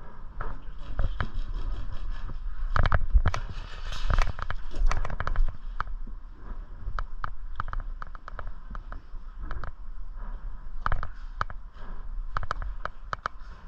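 Airsoft guns firing: irregular sharp pops and clicks, in clusters of rapid shots.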